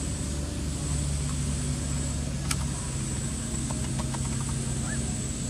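A steady low engine hum, like a motor vehicle idling, with a sharp click about halfway through and a few faint short high chirps near the end.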